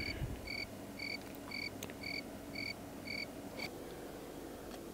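A string of short, evenly spaced electronic beeps, about two a second, stopping about three and a half seconds in.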